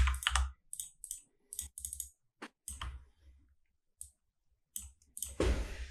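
Computer keyboard and mouse clicks, sparse and irregular, as shortcuts are pressed and menu items picked. A short rush of noise near the end.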